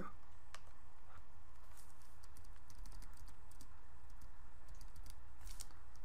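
A few faint, scattered clicks from a computer keyboard and mouse, over a steady low hum.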